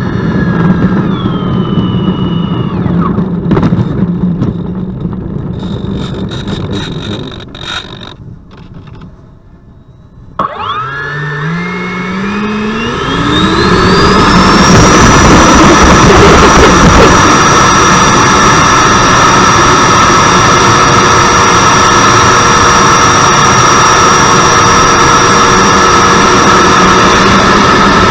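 Electric ducted fan of a 90mm foam model jet, driven by an outrunner motor on a 6S battery, spooling up about ten seconds in: a whine rising steeply in pitch over some four seconds, then a steady, loud high-pitched whine at full throttle through the takeoff roll and climb. Before it there is a stretch of lower, uneven noise that fades away.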